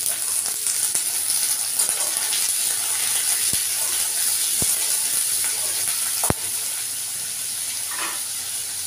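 Diced potatoes and onion sizzling steadily as they fry in hot oil in an aluminium kadai. A metal spatula clinks against the pan three times while stirring, about three and a half, four and a half and six seconds in, the last the loudest.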